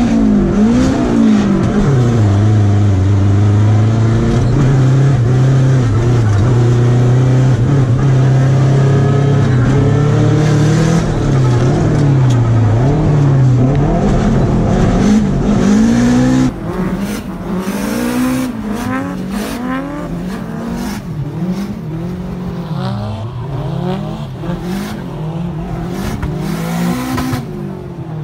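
Drift car engine heard from inside the cabin, revving up and down over and over through a drift run. About two-thirds of the way in it becomes suddenly quieter, with scattered sharp crackles over the engine note.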